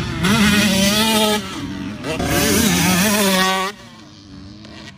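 Motocross dirt bike engine revving hard, its pitch climbing and falling through the gears, then cut off sharply about three and a half seconds in as the rider shuts the throttle for a jump, leaving only a faint engine sound.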